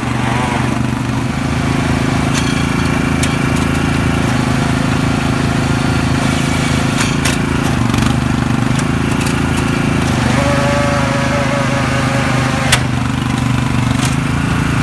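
Murray riding lawn mower engine running steadily, its rear tire spinning on wet wooden boards at first. A few sharp knocks, and about ten seconds in a steady higher whine lasting about two seconds that ends in a sharp crack.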